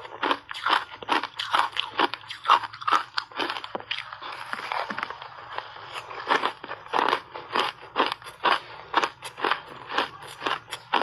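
A person crunching and chewing refrozen shaved ice, close to the microphone, with a quick run of crisp crunches about three a second and a stretch of steadier grinding chews midway.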